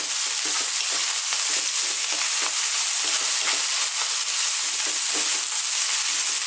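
Fried rice with tofu and peas sizzling steadily in a non-stick frying pan, while a wooden spatula stirs and scrapes through the rice in quick, irregular strokes.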